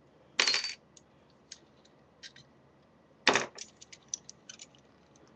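Metal clicks and rattles of padlocks, keys and forged-iron handcuffs being handled. There are two louder clanks, one about half a second in and one a little after three seconds, with small ticks between.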